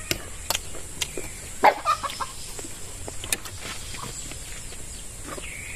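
Chickens clucking, the loudest calls about a second and a half to two seconds in, over scattered light clicks and taps.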